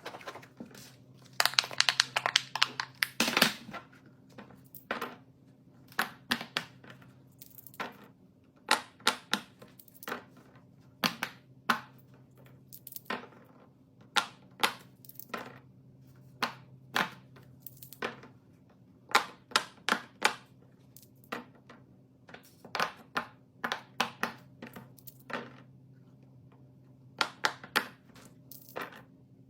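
Close-up clicks, taps and crinkling of small objects being handled, coming in irregular clusters, with a dense crinkling stretch about two seconds in, over a steady low hum.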